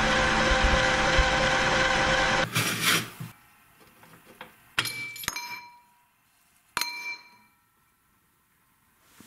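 Electric meat grinder's motor running steadily while it grinds ice, shutting off about two and a half seconds in. Then three sharp metallic clinks, each ringing briefly, from the stainless-steel grinder head being handled.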